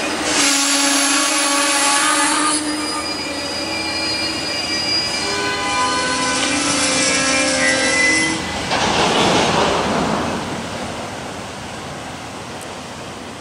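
Amtrak Superliner passenger cars' wheels squealing as the train rolls slowly to a stop, several shifting high tones held for about eight seconds. A short burst of hiss follows, then the sound dies down.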